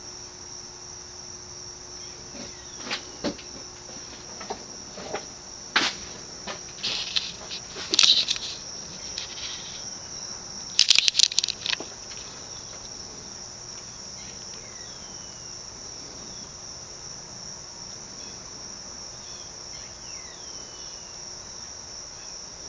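Crickets trilling steadily on one high note, with a few scattered clicks and knocks in the first half, a quick cluster of them about 11 seconds in.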